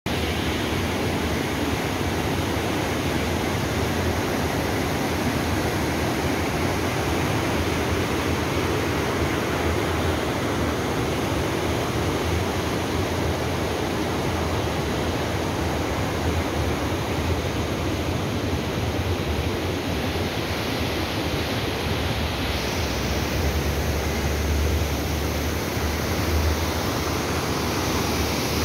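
Mountain river rapids rushing over boulders: a steady, dense whitewater noise with no letup.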